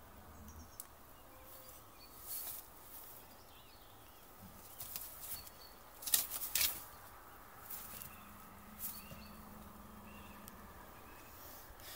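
Small birds chirping in the background, with several short rustling, scuffing noises, the loudest a little past the middle.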